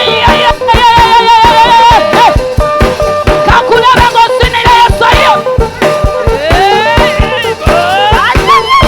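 Upbeat gospel praise band music: a lead melody line with wavering held notes and slides over a fast, steady drum beat.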